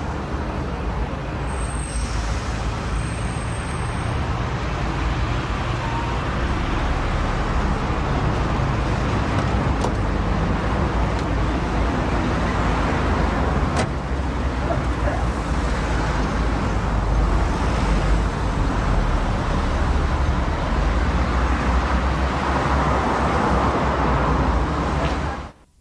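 Steady street traffic noise: car engines and tyres passing on a city road, with one sharp knock about 14 seconds in.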